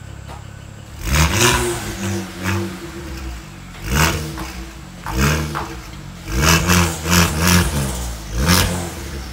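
BMW 135i's turbocharged straight-six, fitted with aftermarket downpipes and a Stage 2+ tune, idling and being blipped: about eight short revs that rise and fall back, three of them in quick succession past the middle.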